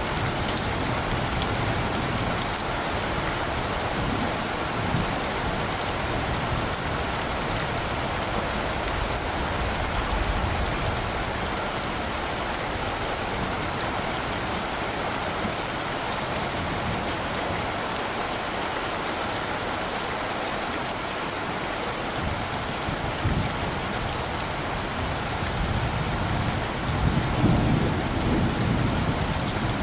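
Steady rain falling, with a dense patter of individual drops. A low rumble of distant thunder swells near the end.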